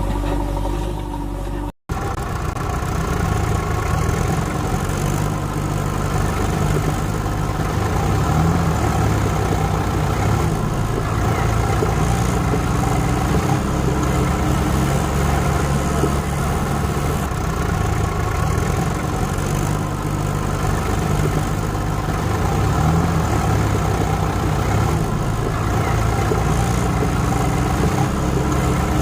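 An engine running steadily at a low, even speed. It cuts out for an instant about two seconds in, then carries on.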